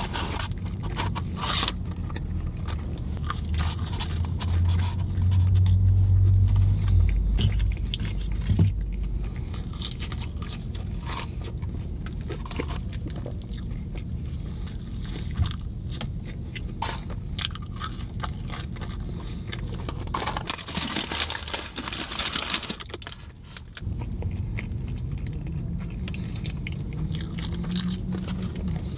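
Close-up chewing and biting of fried fast food, wet mouth noises and small crunches, with a low steady hum underneath that swells a few seconds in.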